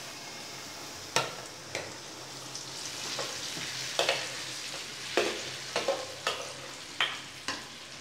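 Urad dal batter poured into hot sesame oil in an aluminium kadai, sizzling steadily, with several sharp clicks through it.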